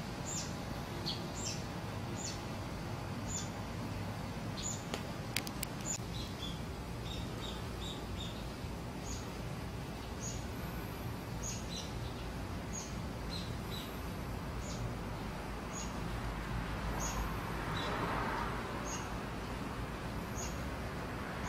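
Small birds chirping outdoors: short, high chirps repeating about once a second, over a steady low rumble of ambient street noise. About three-quarters of the way through, a brief whoosh swells and fades.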